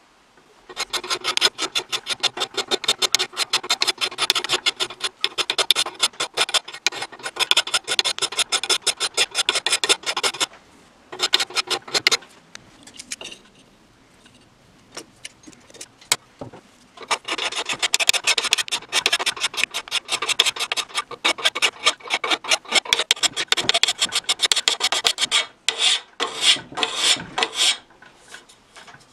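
Flat hand file scraping back and forth across the rusty metal breast plate of a Millers Falls No. 118 breast drill, in long runs of quick strokes. The strokes stop for a few seconds in the middle and end with a few separate, slower strokes.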